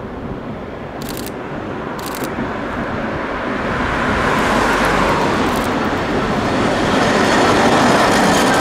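Coupled Tatra T4D tram cars running along street track towards the listener and passing close, their rumbling running noise growing steadily louder, with a thin whine rising and falling near the end. A car passes about halfway through.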